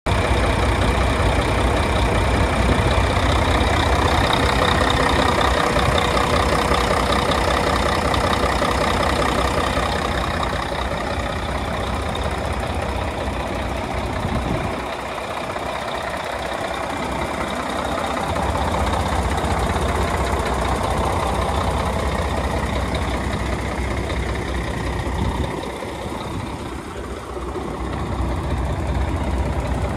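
Volvo VE D12 12-litre inline-six diesel engine of a tandem-axle truck idling steadily, with two short dips in level.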